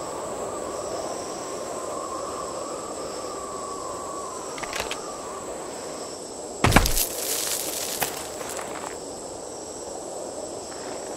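Steady insect-like desert ambience with a wavering high drone. A few faint clicks come about five seconds in, then a sudden loud burst with a deep thump about seven seconds in, trailing into crackling for about two seconds: the sound effect of the small disc-shaped hologram projector switching on.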